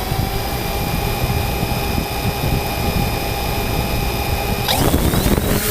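Quadcopter drone's electric motors and propellers spinning with a steady high whine over a rushing noise, then throttling up near the end: the whine rises quickly and the rush grows louder as it starts to lift off.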